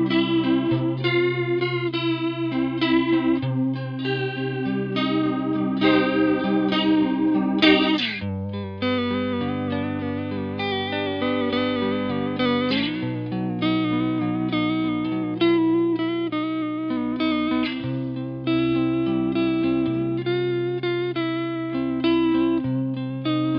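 Electric guitar playing chords and melodic lines through a JAM Pedals Waterfall analog bucket-brigade chorus/vibrato pedal, with chorus modulation on the notes. About eight seconds in the pitch sweeps down, and a little before thirteen seconds it glides back up.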